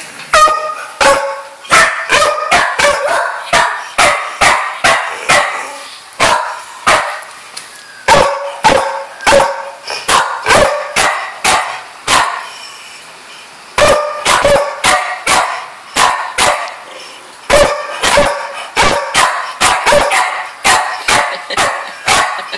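A dog barking again and again: short, sharp barks, about two or three a second, in runs of several seconds broken by brief pauses.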